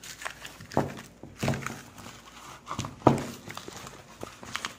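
Frozen vacuum-sealed sausage packs being handled and set down into a bag, with plastic rustling and three dull knocks, the loudest about three seconds in.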